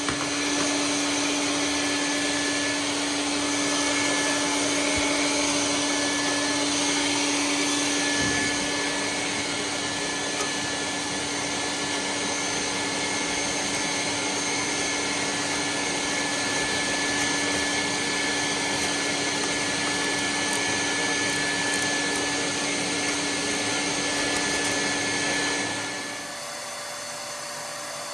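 Soot vacuum running steadily with a constant hum and whine while soot is cleared from the boiler's flue passages. A couple of seconds before the end the sound drops suddenly to a quieter steady noise.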